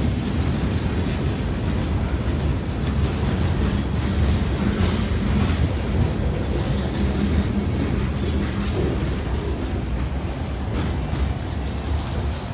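Freight train boxcars rolling past close by: a steady low rumble of steel wheels on rail, with a few short clanks along the way.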